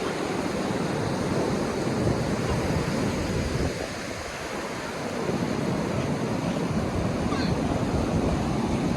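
Ocean surf breaking and washing up a sandy beach, with wind buffeting the microphone. The wash eases about four seconds in, then builds again as the next wave comes up.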